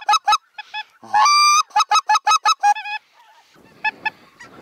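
Geese honking: a rapid run of short, two-toned honks, one long held honk about a second in, then a few fainter honks near the end.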